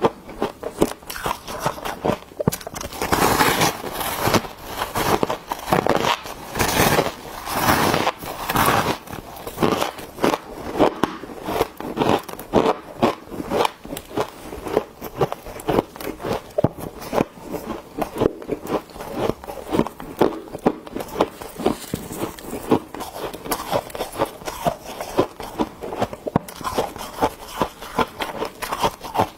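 Biting into and chewing thick refrozen freezer frost: a dense run of crisp crunches and crackles as the ice crystals break.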